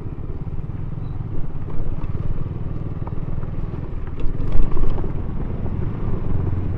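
KTM Duke 200's single-cylinder engine running at low speed over a rough dirt trail, with a low steady rumble. A few short knocks come about four to five seconds in.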